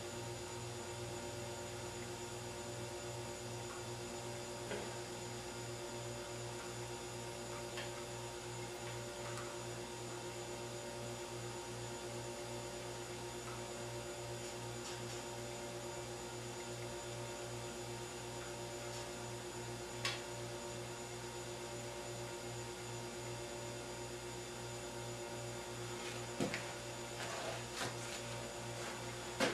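Steady electrical mains hum, with a few faint clicks scattered through it, the clearest about 20 seconds in and a cluster near the end.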